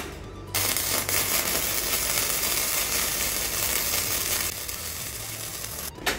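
Gasless flux-cored MIG welding arc on a 100 V EENOUR MIG120L welder at about 83 amps, crackling and sizzling as it lays a bead on painted 2.3 mm steel plate. The arc strikes about half a second in, runs for about five seconds, gets somewhat quieter near the end and then stops.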